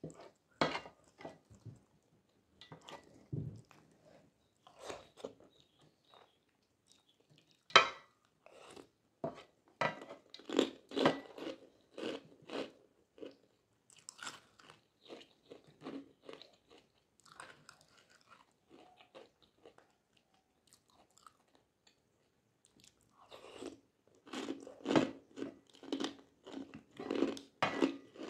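Close-miked eating of meatballs and flat rice noodles in spicy broth: irregular chewing and biting sounds in clusters, with a few seconds of near quiet past the middle.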